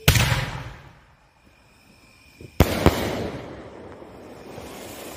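Triple-ball sky shot firework going off: a sharp bang right at the start that fades over about a second, then two more bangs a quarter second apart about two and a half seconds in, trailing off slowly.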